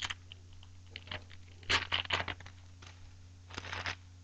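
Hockey card pack wrapper being torn open and crinkled as the cards are slid out: two bursts of rustling, about two seconds in and near the end.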